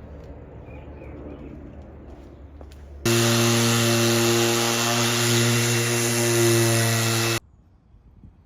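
Electric palm sander running on a wooden tabletop: a steady hum with a bright hiss. It starts suddenly about three seconds in and stops about four seconds later, after some quieter outdoor ambience.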